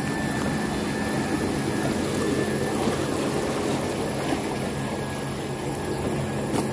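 Paddy-field irrigation pump motor running steadily: a constant low hum, with water pouring from the pump's outlet.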